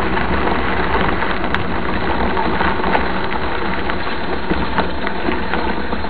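Mountain bike rolling along a gravel road: a loud, steady rushing crunch of tyres on loose gravel mixed with wind on the microphone, with scattered small clicks and rattles.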